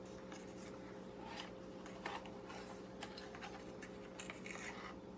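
Quiet room tone: a steady low hum with scattered faint clicks and rustles of small things being handled.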